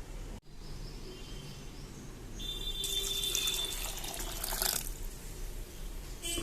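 Water pouring into a cooking pot, loudest from about two and a half to five seconds in.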